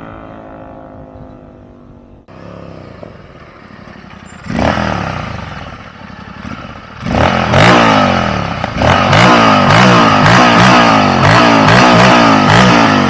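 Royal Enfield Continental GT 650 parallel-twin running through a Red Rooster Performance Stellar aftermarket exhaust: first passing by with its pitch falling away, then in a few short pieces being revved hard, ending in a loud run of rapid revs that climb and drop about twice a second.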